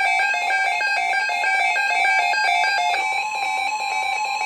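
Weather radio receiver's electronic alert alarm beeping rapidly, about five beeps a second, in two alternating pitches. About three seconds in, a steady single tone starts beneath it: the weather radio warning alarm tone that comes before an alert message.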